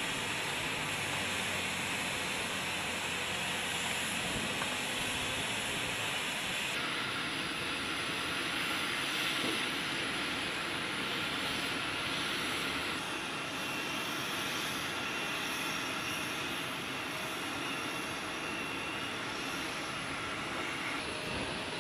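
Steady jet-turbine noise on an airfield ramp: an even rush with a faint high whine. Its character shifts abruptly about 7 and 13 seconds in.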